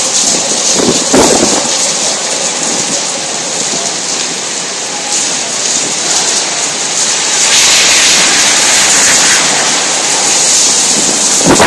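Heavy hurricane rain pouring down in a steady hiss, growing louder about seven and a half seconds in.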